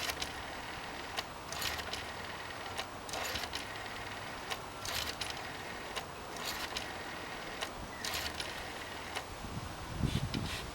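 Rotary telephone dial being dialled: digit after digit, about one every one and a half seconds, each a wind-up followed by the dial spinning back with a run of clicks. Near the end comes a louder low thump of handling.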